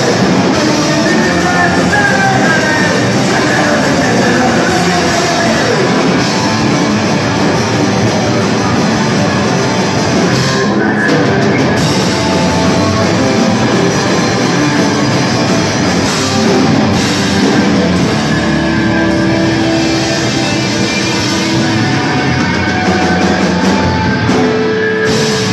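A live rock band playing loud and without a break: electric guitar and drum kit, in a large warehouse hall.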